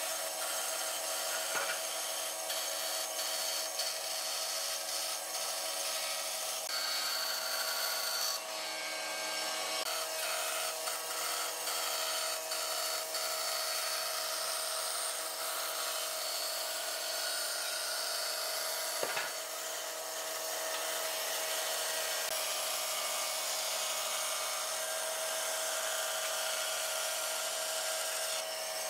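Band saw running and cutting a curve through pine boards: a steady motor hum with the hiss of the blade in the wood. One sharp click about two-thirds of the way through.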